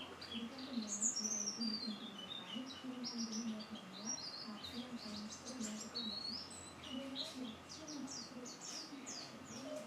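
White-eye (pleci) singing: a fast, continuous stream of high chirps and twittering, with a long descending warbled run about a second in.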